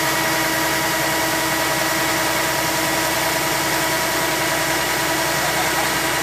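Kubota DC-70G combine harvester's diesel engine running steadily while its unloading auger delivers grain from the spout into a sack: a steady machine drone with constant whining tones.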